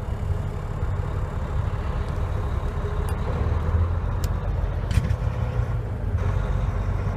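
Volvo VNL 780 semi truck's diesel engine pulling away under throttle, heard from inside the cab, as the I-shift automated manual transmission shifts up through the gears.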